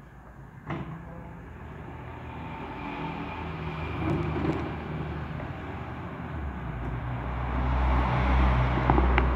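A motor vehicle's engine approaching, its low rumble growing steadily louder over several seconds and loudest near the end. A sharp click sounds about a second in, and another near the end.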